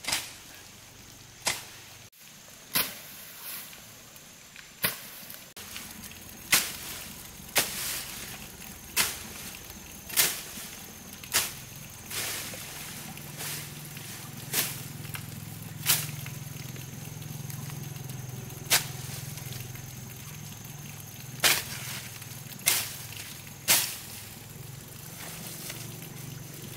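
Repeated sharp chops of a bladed hand tool cutting into the earth bank and its plants, roughly one blow every second or so, with a few longer gaps.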